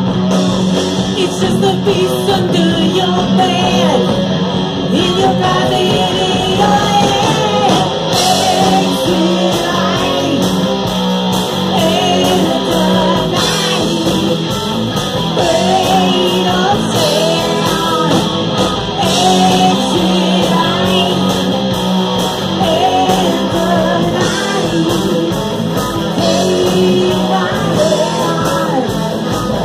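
Live rock band playing loudly: a woman sings lead into a microphone over electric guitar and a drum kit.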